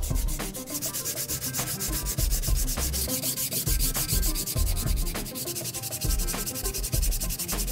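Sandpaper rubbed by hand in rapid back-and-forth strokes over the wooden stock and forearm of a Daisy Model 99 BB gun, a continuous scratchy rasp. The sanding is stripping the worn clear coat and stain down to raw wood.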